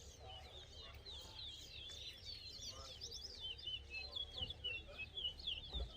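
Towa-towa seed finch singing: a fast, continuous run of high chirps and short sweeping whistles.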